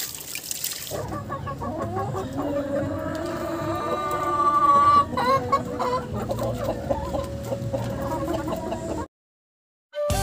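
A flock of heritage chickens clucking as they feed, with one long drawn-out call that is the loudest sound, about four to five seconds in. The sound cuts off abruptly about nine seconds in.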